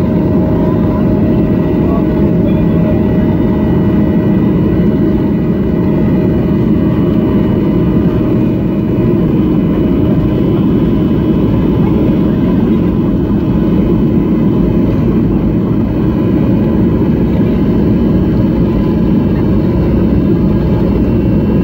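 Jet airliner cabin noise: the underwing jet engines running with a steady loud drone and low rumble, and a few steady whining tones, as the plane rolls along the runway.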